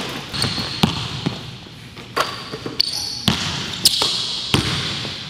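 A basketball being dribbled on a hardwood gym floor: about six sharp bounces, irregularly spaced. Short high sneaker squeaks come between them.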